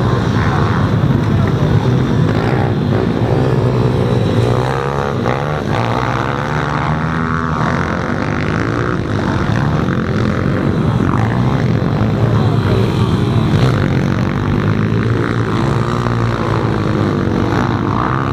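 Several pit bike engines racing together, each revving up and falling back as the riders accelerate out of and brake into the corners, their rising and falling notes overlapping.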